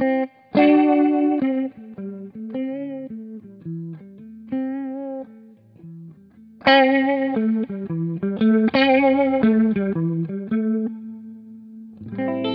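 Electric guitar, a reissue Fender Telecaster, played through a Fender Pinwheel rotary-speaker pedal into amps: picked notes and strummed chords with a warbling Leslie-style swirl, a chord left ringing near the end. The pedal's dynamics sensitivity is on, so the rotor speed shifts between slow and fast with how hard the strings are picked.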